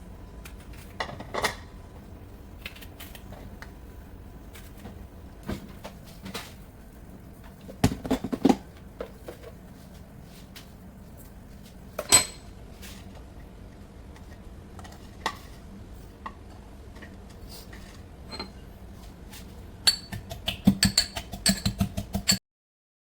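Metal kitchen utensils clinking and knocking against pots and dishes: scattered single clinks, one sharp ringing clink about halfway through, and a quick run of taps near the end.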